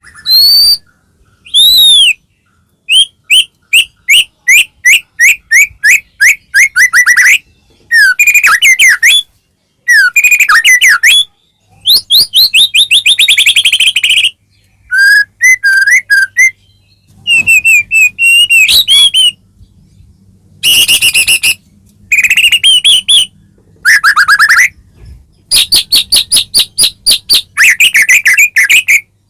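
White-rumped shama (murai batu) singing loudly in long, varied phrases: fast runs of repeated notes, trills and clear whistles that sweep up and down, with brief pauses between phrases. It is a shama in full 'gacor' song.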